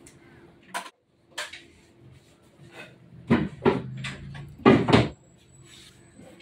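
A run of knocks and clatter from things being handled at a barbershop counter. The loudest bangs come about three seconds in and again about five seconds in.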